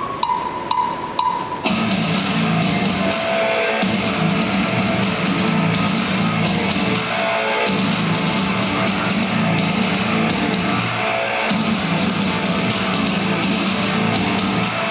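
Loud heavy metal music with guitars and drums, starting abruptly about two seconds in after a few clicks and a short steady tone.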